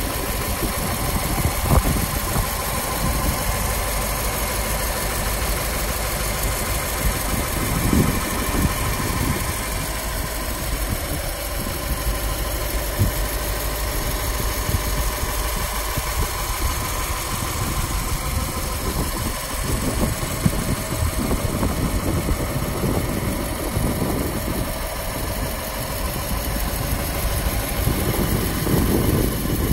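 1940 Ford pickup's 221 cu in flathead V8 idling steadily.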